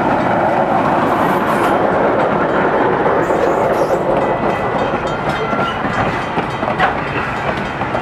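GE 44-ton diesel locomotive passing close, followed by a train of passenger coaches rolling by on the rails. The sound stays loud and steady throughout and eases slightly near the end.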